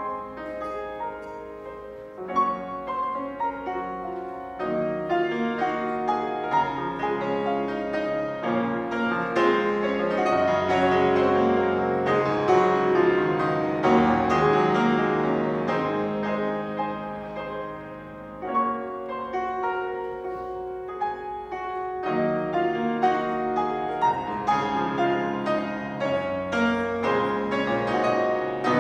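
Yamaha grand piano played solo in a dense, many-note passage, growing louder toward the middle, dropping back about two-thirds through, then building again.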